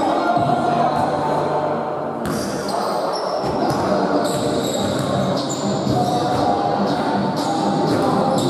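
A ball game on a hard indoor court: a ball bouncing repeatedly, with players' voices, in a large echoing hall.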